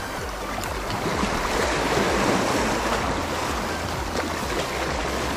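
Sea waves washing against shore rocks, a steady rush that swells to a peak about two seconds in.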